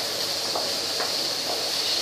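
Boiled chickpeas sizzling with a steady hiss in oil and chana masala in a non-stick kadai, with a wooden spatula scraping through them about twice a second as they are stirred.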